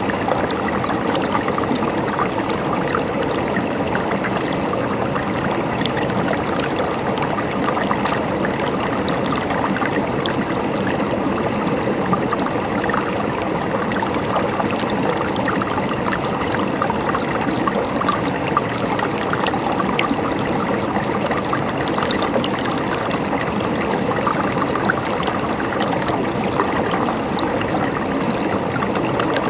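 Water of a small stream running and trickling steadily over stones, an even babbling with small splashes.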